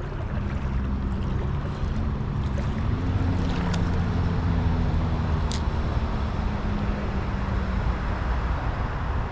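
Steady rumble of highway traffic, with one passing vehicle's engine drone swelling and rising in pitch about three seconds in and fading out near the end. A couple of sharp clicks sound over it.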